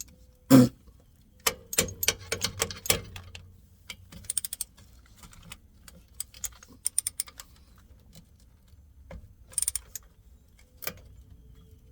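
Hand tools working a fitting on a truck's air dryer: metal clinks and knocks, with short runs of quick, evenly spaced ratchet-like clicking. One sharp knock about half a second in is the loudest.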